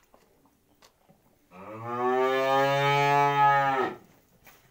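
Cattle mooing: one long moo of about two and a half seconds, starting about one and a half seconds in. Its pitch rises briefly at the start, holds steady, and drops away as it ends.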